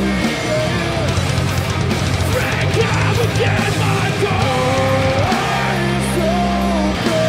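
Metal band playing live: heavy distorted electric guitars, bass and drums, with a bending guitar melody line on top and harsh screamed vocals through the middle.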